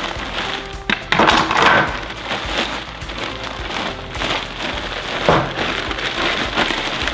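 Large clear plastic bag crinkling and rustling as parts are pulled out of it, loudest about a second in and again a little after five seconds.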